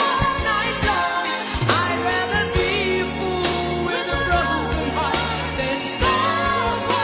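Soul-pop ballad recording: a female lead voice sings over a band with bass and drums.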